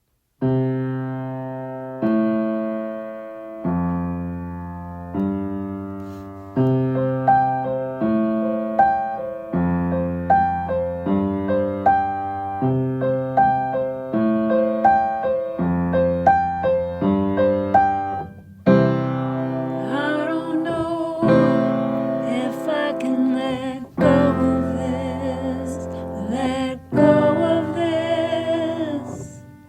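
Song introduction on piano: chords struck roughly every one and a half seconds, each left to ring and fade, with a melody line repeating above them after the first few chords. About two-thirds of the way through, a fuller arrangement joins with sustained, wavering lines over the piano.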